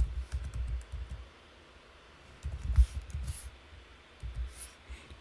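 Typing on a computer keyboard in three short bursts of key clicks, with dull thuds beneath the clicks.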